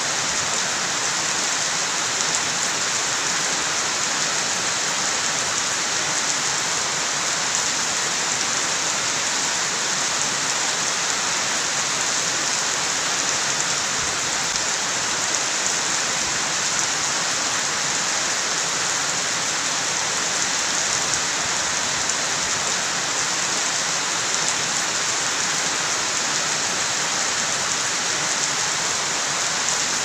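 Steady rain falling on banana plants, trees and wet ground: an even, unbroken hiss with no thunder.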